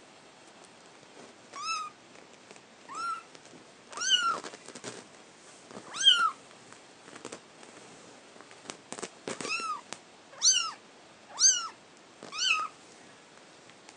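A young kitten mewing repeatedly: about eight short, high-pitched mews, each rising then falling in pitch, while it is being handled. There are a few faint rustles and knocks between the calls around the middle.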